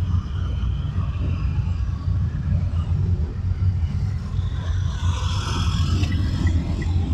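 A car driving in city traffic, heard from inside the cabin: a steady low rumble of engine and tyre noise. The hiss of a passing vehicle swells about five seconds in. Near the end, a short regular ticking starts, about three ticks a second.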